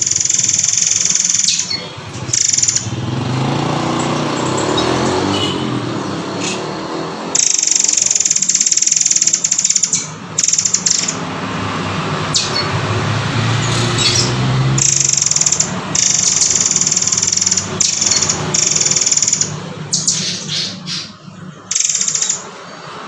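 Murai air (murai kopi) song: high, shrill calls in long stretches that start and stop every few seconds.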